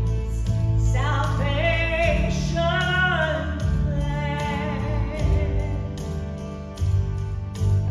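Gospel music: a trio of women singing with instrumental accompaniment of bass and a steady beat, the voices strongest in the first half and the band carrying on under a held note after.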